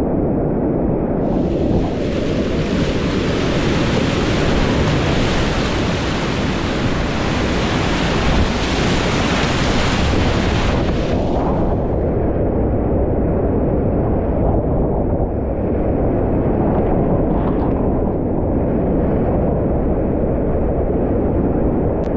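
Whitewater rapids of a glacial river rushing loudly and steadily, heard from close to the water on a kayak. About halfway through, the hiss thins out and the rushing turns duller.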